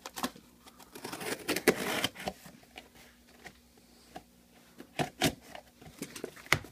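Battery packaging being handled: sharp clicks and taps, with a stretch of rustling and scraping about a second in and a few more clicks near the end.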